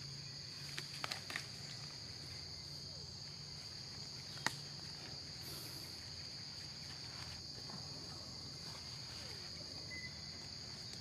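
Steady high-pitched chorus of insects in the forest undergrowth, an unbroken buzzing trill. A few short clicks come about a second in, and one sharp click about four and a half seconds in.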